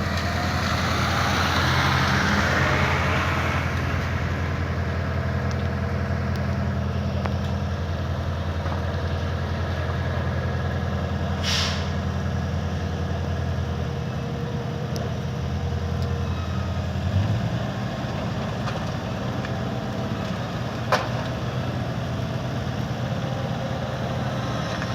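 Heavy road-works machinery's diesel engine idling steadily, its pitch shifting slightly past the middle, with a brief hiss about twelve seconds in and a sharp click near the twenty-one-second mark.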